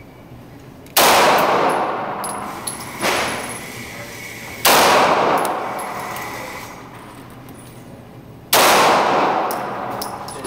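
Heckler & Koch USP 9mm pistol firing single shots: three loud shots about four seconds apart, each followed by a long echoing tail in the indoor range. A fainter bang comes about three seconds in.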